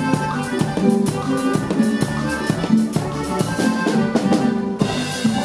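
Live norteño band playing a song, with a drum kit keeping a steady beat under the sustained melody.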